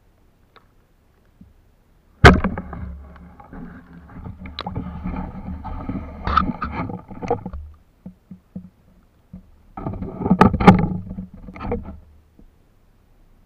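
Water splashing and sloshing in shallow water, in two rough bursts: the first starts suddenly a couple of seconds in and runs several seconds, and the second comes near the end after a short lull.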